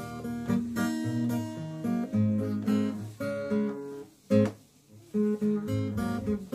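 Acoustic guitar music, plucked and strummed, with a brief break about two-thirds of the way through.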